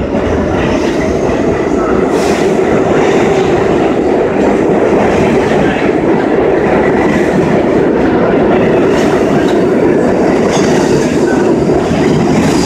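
R32 subway train pulling out of the station, its cars passing close by with a loud, steady rumble of steel wheels on rail and a few sharp clicks.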